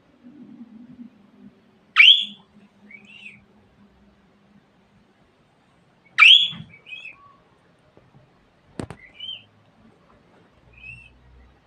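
Caged budgerigars giving short, sharp, rising chirp calls: two loud ones about two and six seconds in, with softer chirps between and after. There is a single sharp click a little before nine seconds.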